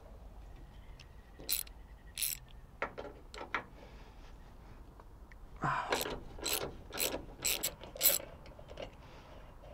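Hand ratchet clicking in several short bursts as the cowl panel's bolts are backed out, with the bursts bunched between about six and eight seconds in.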